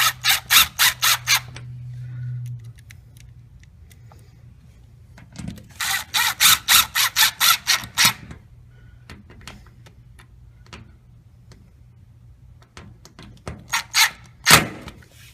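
A tool tightening the bolts that hold a metal outlet-kit flange on the back of a gun safe: three runs of quick, even rasping strokes, about five a second, the longest in the middle. A steady low hum under the first run stops a couple of seconds in.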